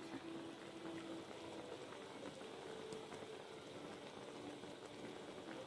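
Seasoned broth with egg bubbling faintly at a simmer in a metal cooking pan.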